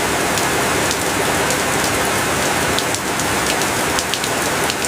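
Steady rain on a tin roof: a dense, even hiss with individual drops ticking sharply over it.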